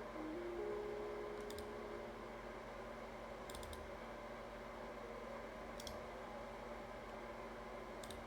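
A few sharp computer mouse clicks, spaced a couple of seconds apart, over a faint steady background hum.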